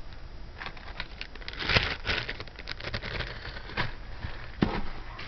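Small plastic bag crinkling, with light clicks and taps as a piece of jewelry is handled and taken out of it; the busiest crinkling is about two seconds in, and two sharper clicks come near the end.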